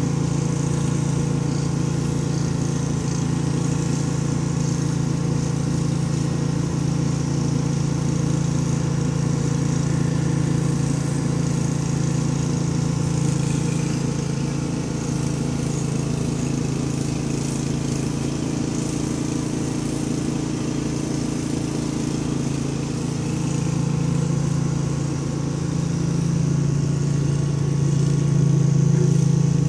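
Cat purring steadily, close to the microphone, with a fast low rattle; it grows louder near the end.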